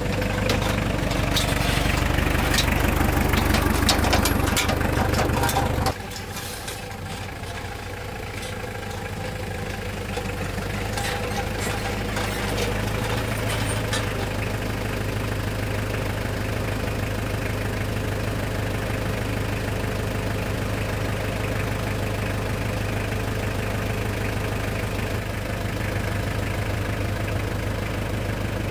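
An engine running steadily. For about the first six seconds it is louder, with scattered clattering knocks. Then the level drops suddenly and it settles into an even, steady running.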